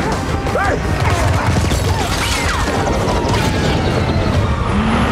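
Film sound-effects mix of a damaged military helicopter: rotor and engine rumble with shrill sliding metallic whines and knocks of straining metal, under a music score.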